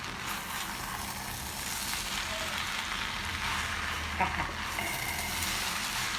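Spaghetti and vegetables sizzling steadily in hot oil in a pan while being stirred, with one brief knock a little after four seconds in.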